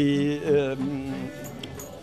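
A long held voice note: steady at first, it shifts pitch about half a second in, then holds and fades, over quiet background music.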